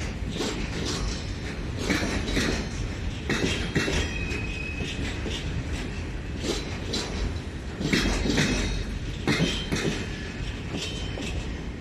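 Slow-moving freight train of loaded flat wagons rolling past, its wheels clunking over rail joints in groups every second or two over a steady rumble.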